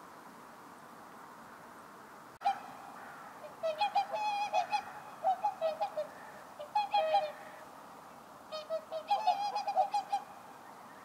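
Whooper swans calling: runs of loud bugling honks in several bouts, starting a few seconds in after a single sharp click.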